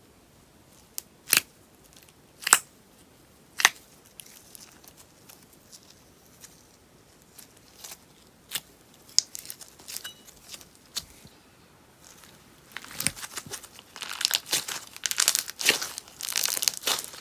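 Sponge slime crackling and popping as it is worked: three sharp single pops in the first few seconds, scattered small clicks after, then dense, continuous crackling from about thirteen seconds in.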